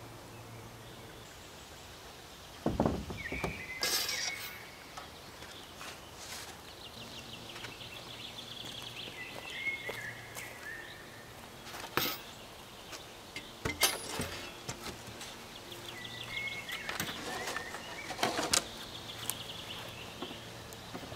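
Songbirds chirping and trilling, with several sharp wooden knocks and clatters as a long wooden board is handled and set down across logs.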